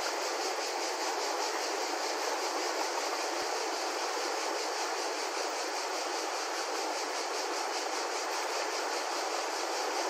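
Fast-flowing river rushing and churning over a snagged log, a steady hiss of moving water with little low rumble.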